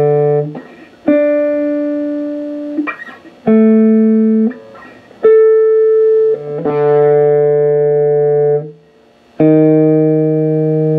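Unplugged electric guitar's fourth (D) string plucked note by note, each note ringing one to two seconds: the open D, then notes an octave and a fifth higher up the neck, then the open D again. It is a tuning and intonation check of the freshly installed Floyd Rose FRX bridge.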